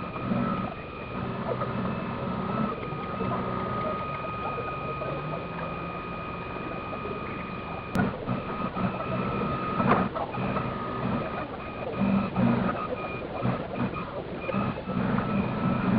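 Steady whine of an electric model tug's drive motor picked up by its onboard camera, sped up fourfold, over a choppy fluttering whirr. A single sharp click about eight seconds in.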